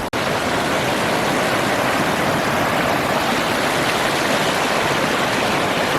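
Fast-flowing mountain stream rushing over rocks and small cascades, a steady rush of water, with a split-second dropout just after the start.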